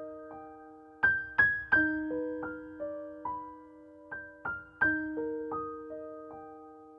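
Gentle keyboard music: single piano-like notes struck one after another and left to ring, in a slow repeating phrase.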